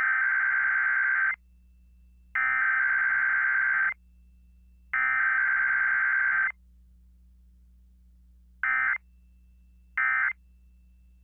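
Emergency Alert System SAME data tones: three long, buzzy digital bursts of about a second and a half each, spaced about a second apart, then two much shorter bursts.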